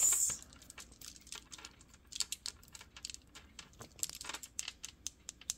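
A long strand of large beads clicking and clacking against one another as it is gathered up and handled, in quick irregular clicks, with a brief rustle at the start.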